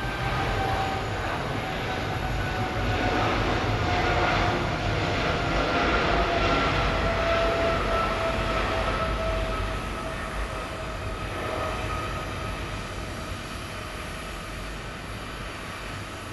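Boeing 777-300ER's twin GE90-115B jet engines at takeoff thrust during the takeoff roll: a steady roar with a whine that slowly drops in pitch, loudest around the middle as the jet passes, then fading in the last few seconds as it rotates and lifts off.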